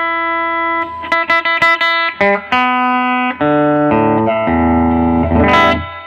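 Electric guitar played through a Fender Custom Vibrolux Reverb tube combo amp: a held chord, then a few quick picked notes, then a run of single notes and chords ending on a loud, full low chord that stops shortly before the end.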